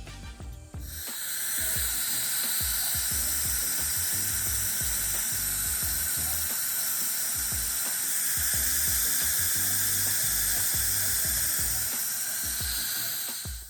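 Dental equipment hissing steadily, starting about a second in and cutting off near the end.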